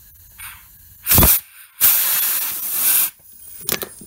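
Compressed-air blow gun blasting into a master cylinder's outlet port: a short hiss about a second in, a longer blast of just over a second, then a brief puff near the end. The piston, held in by a lip of rust at the end of the bore, does not shoot out.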